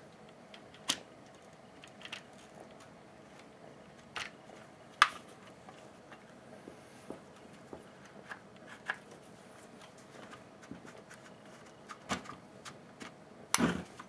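Scattered light clicks and taps of small parts and hand tools being handled while reassembling a Stihl HS80 hedge trimmer, the sharpest about five seconds in and a quick cluster near the end, over a faint steady hum.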